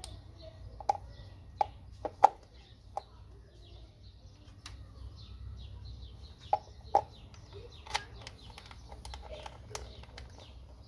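Chickens clucking in short, sharp calls, several in a row early on and a few more about seven seconds in, over small birds chirping steadily in the background.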